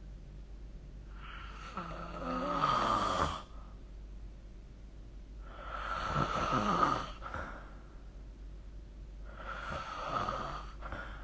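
A person snoring in their sleep: three snores about four seconds apart, each lasting about two seconds, the first falling in pitch as it goes.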